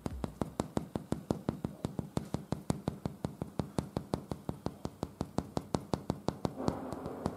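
Fingertip knocking rapidly and evenly on a plasterboard ceiling, about five or six knocks a second, listening for where the hollow sound changes over the steel framework behind the board.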